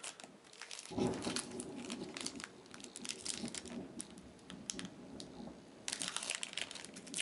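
Crinkling and crackling of a trading-card booster pack wrapper being handled and opened, in irregular bursts that pick up about a second in and again near the end.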